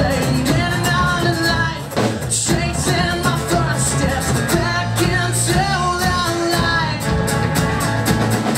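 Live band playing a rock song: a man singing over acoustic guitar, electric bass and drums keeping a steady beat.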